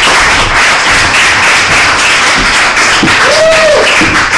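Audience applauding, a dense steady clatter of clapping hands, with one rising-and-falling whoop about three seconds in.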